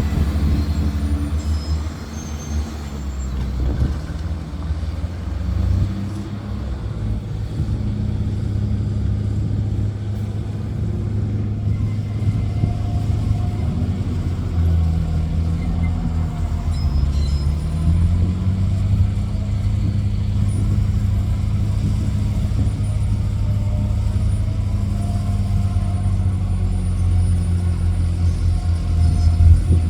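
Heavy truck engine running steadily at a low, even drone; its speed sags a little past the middle, then picks up again.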